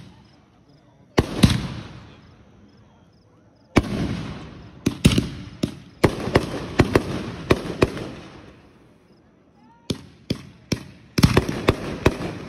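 Fireworks exploding: sharp bangs, each followed by a rolling echo that dies away. They come singly near the start, then in quick clusters of several bangs from about four seconds in, with a denser run near the end.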